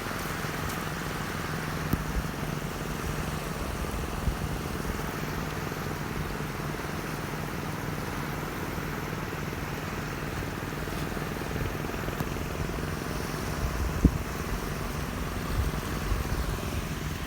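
Boat engine running with a steady drone, with a single knock about fourteen seconds in.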